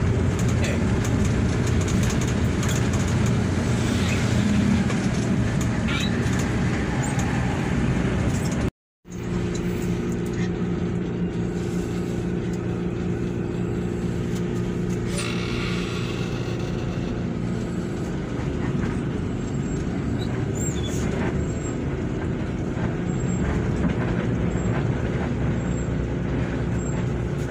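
Interior of a Hino RK8 R235 bus on the move: steady engine drone with road and traffic noise. The sound cuts out for a moment about nine seconds in, then the drone goes on steadily as the bus crawls in a traffic jam.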